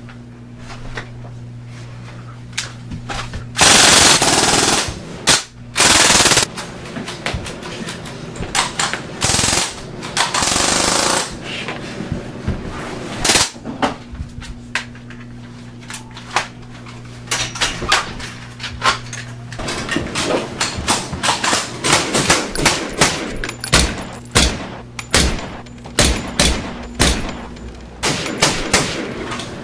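Gunfire: a few long bursts of automatic fire in the first half, then a dense run of rapid shots and short bursts through the second half, over a steady low hum.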